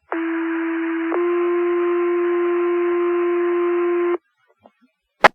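Fire department two-tone sequential pager tone-out over a scanner radio: one steady tone for about a second, then a slightly higher tone held for about three seconds, alerting volunteer firefighters to a call. A sharp radio click follows near the end.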